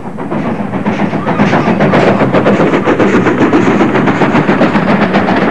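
Steam locomotive hauling a passenger train past at speed: rapid rhythmic exhaust beats and rattling wheels, growing louder over the first couple of seconds and then cutting off abruptly.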